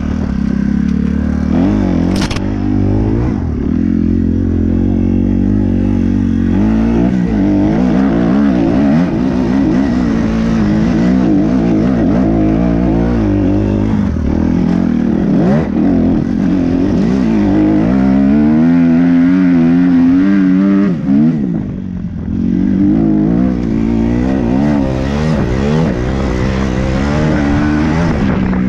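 A 250cc Kawasaki dirt bike engine heard up close from on the bike, revving hard and dropping back again and again as the rider works the throttle and shifts gears. A brief sharp knock about two seconds in, and the engine dips for a moment on a short throttle-off a little after three-quarters of the way through.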